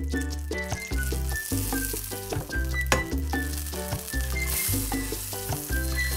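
Butter melting and sizzling in a hot stainless steel frying pan, the hiss building after about a second as it foams. Background music with a plucked melody and steady bass plays throughout.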